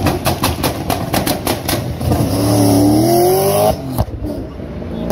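Car engine and exhaust revving hard in a stuttering run of sharp pulses, about five a second, as a hatchback pulls away. About two seconds in, the engine note rises steadily through a gear for over a second, then cuts off abruptly as the driver lifts.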